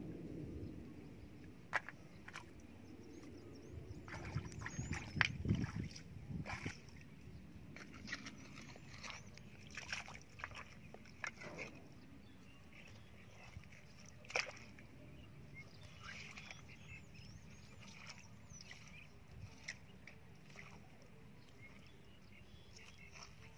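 Hands sloshing and scooping in shallow muddy water, with irregular small splashes and wet mud squelches as the mud is dug through by hand for fish. The splashing is busiest and loudest in the first half and thins out later.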